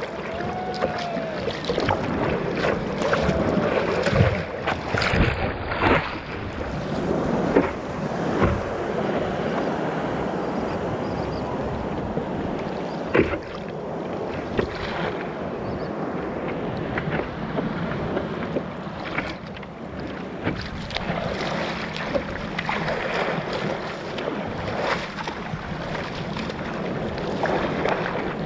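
Sea water sloshing and splashing around a surfboard close to the microphone as the surfer paddles, with wind buffeting the microphone. It is choppy with many splashes for the first eight seconds or so, then settles to a steadier lapping while he sits on the board.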